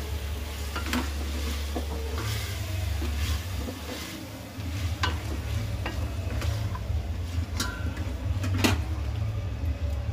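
Wooden spatula stirring fried potatoes and ginger-garlic paste in a metal pot, with scraping and scattered sharp knocks of the spatula against the pot, over the sizzle of the oil. A steady low hum runs underneath.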